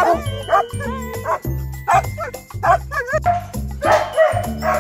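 Canines barking and yipping at a fence in short, pitch-bending calls, over background music with a steady beat.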